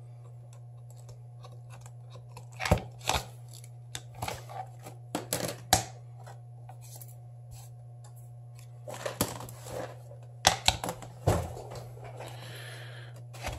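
Scattered clicks, knocks and scrapes as a Samsung Galaxy S7 Edge's metal mid-frame is handled and set down on a wooden cutting board, over a steady low hum.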